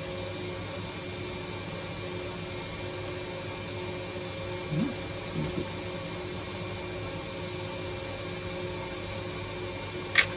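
Steady electrical hum in a small room, with a few faint handling noises around the middle and a sharp click near the end as the plastic body of a hand planer is handled.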